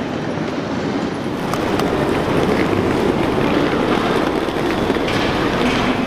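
Train running on rails, a steady rumble that grows louder about a second and a half in.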